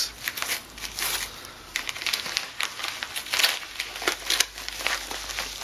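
Parcel packaging being opened by hand: irregular crinkling and rustling, with short crackles.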